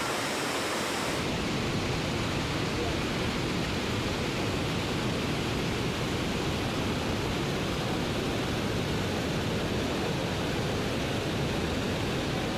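Steady roar of water plunging over the Devil's Throat at Iguazu Falls, a dense rushing noise with no let-up. About a second in it turns a little duller, with less high hiss.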